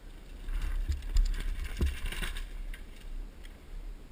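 Downhill mountain bike passing close by on a dirt trail: tyres rolling and skidding through loose dirt and the bike's chain and frame rattling, loudest about a second in, then fading.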